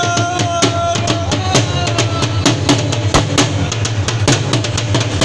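Dhol, a double-headed barrel drum played with sticks, beating a fast, driving dance rhythm with deep booms under sharp strokes.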